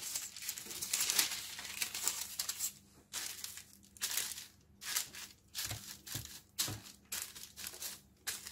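Parchment paper crinkling and rustling as hands lay it over a baking pan and smooth it down. It is a near-continuous rustle for the first few seconds, then separate swishes about every half second as the hands stroke the sheet flat.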